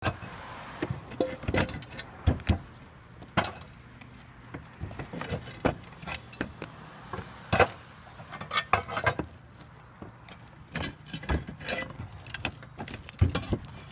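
Concrete flat roof tiles clinking and knocking against each other as they are pried up and handled during a tile roof tear-off: irregular sharp clacks, the loudest about halfway through.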